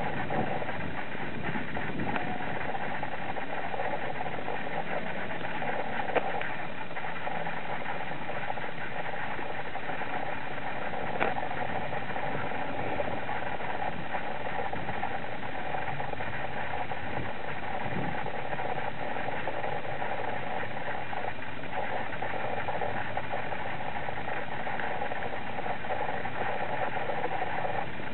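Suzuki SV1000S's 90-degree V-twin idling steadily through an aftermarket Beowulf exhaust.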